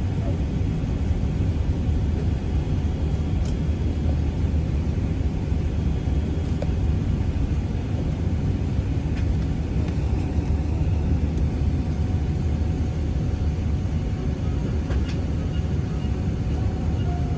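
Steady low rumble inside the cabin of a Boeing 777-300ER taxiing, its GE90 engines at low thrust, with a faint steady whine above the rumble.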